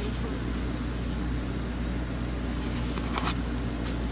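Steady low mechanical hum, with a brief rustle or scrape about three seconds in.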